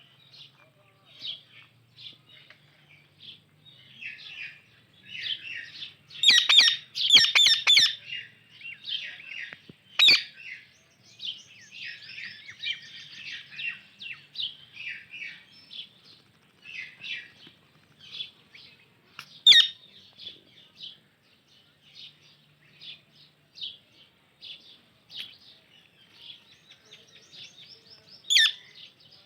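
Indian ringneck and alexandrine parakeets chirping continuously in quick short notes. A louder run of rapid calls comes about six to eight seconds in, and single sharp, loud calls come around ten, twenty and twenty-eight seconds in.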